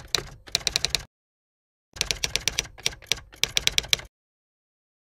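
Typing sound effect: rapid key clicks in two runs, broken by a short pause about a second in, stopping abruptly about four seconds in.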